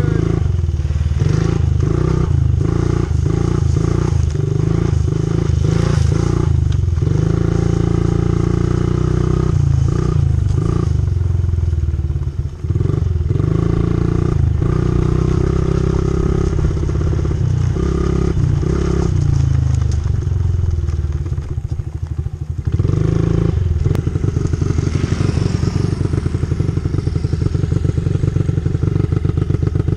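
Dirt bike engine ridden across a field: revved in short repeated throttle blips at first, then held in longer pulls with a couple of brief drops. Near the end it settles into a steady, rapid, even putter, running with the choke still on.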